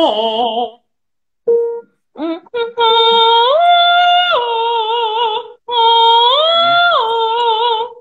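A soprano sings a vocalise on an O vowel: after a few short starts she holds a note, steps up a fifth and comes back down, then sings the same figure again, with vibrato. It is an exercise for singing the French nasal O on higher notes.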